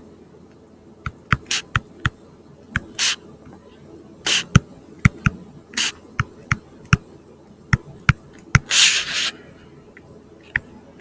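Stylus writing on a tablet: irregular sharp taps as the pen tip meets the surface, with a few short scratchy strokes, the longest about nine seconds in.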